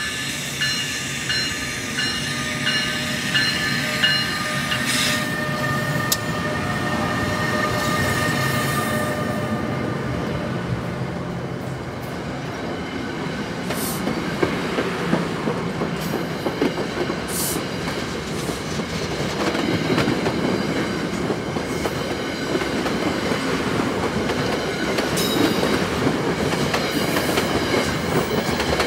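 An NJ Transit ALP-46 electric locomotive and its bilevel coaches roll past over a grade crossing, a continuous rumble with wheel clickety-clack throughout. For the first several seconds a crossing bell rings evenly over the approaching locomotive, fading out within about ten seconds.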